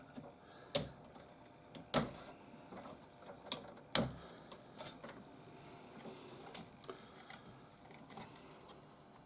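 Sharp plastic clicks and taps as a RAM stick is worked loose from a desktop motherboard's memory slot and its retaining latch. The loudest clicks come about a second in, at two seconds and at four seconds, with fainter ticks in between.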